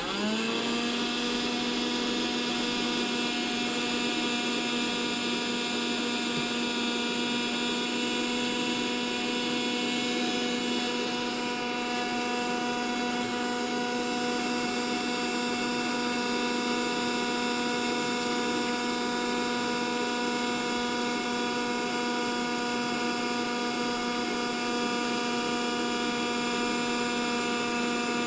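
Small vacuum cleaner switched on: its motor spins up in the first moment, rising in pitch, then runs at a steady whine while sucking dust out of a laptop's cooling fan exhaust.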